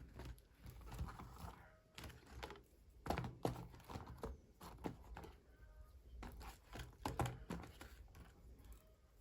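Small plastic toy pieces and packaging being handled, giving irregular light taps and clicks, with a few louder knocks about three and seven seconds in.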